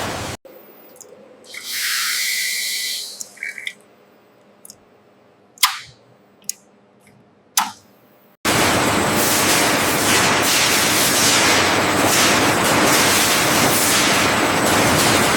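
Water spraying with a steady loud hiss, as from washing jets, starting suddenly about halfway through. Before it comes a short burst of hiss and a few sharp clicks over quieter background.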